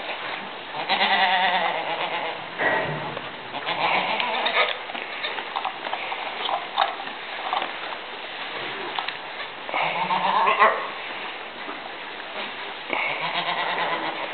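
Goats bleating several times, each call wavering in pitch, during the birth of a kid.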